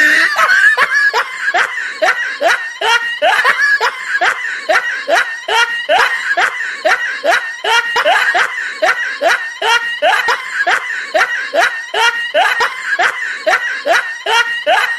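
Continuous snickering laughter: short rising laughs, about three a second, in an unbroken, very even run.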